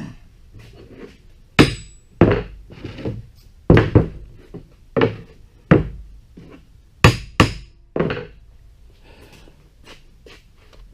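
Hammer blows on steel as a blacksmith's hold-down tool is knocked into place, about ten sharp strikes at uneven spacing, each with a brief ring.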